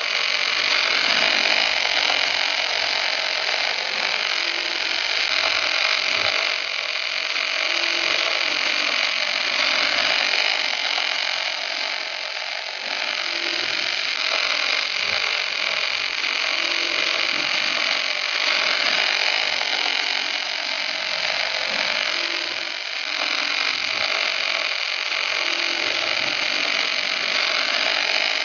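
Two welding torches on a portable welding carriage, arc-welding both sides of a fillet joint at once: a steady, even crackle and hiss of the welding arcs. It starts suddenly when the arcs strike.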